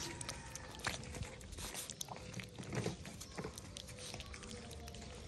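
A cat eating wet cat food chunks from a plastic tray, with irregular wet chewing and smacking clicks.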